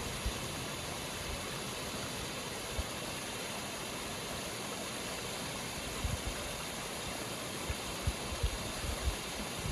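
Muddy flash-flood water rushing steadily as it pours over the broken edge of a road into a rocky wash, with a few low thumps in the second half.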